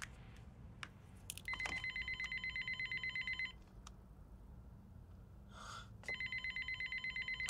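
900 MHz digital cordless phone handset ringing: an electronic trill of rapid pulses, about ten a second, in two rings of about two seconds each.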